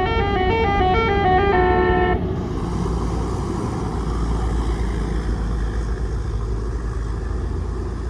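A bus's telolet basuri musical horn playing a quick tune of stepped multi-tone notes, which stops about two seconds in. A steady low engine rumble and road noise follow as the vehicle carries on.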